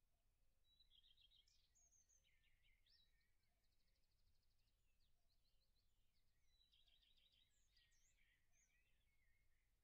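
Near silence with a very faint songbird singing two phrases of rapid trilled and chirped notes, one near the start and one in the second half.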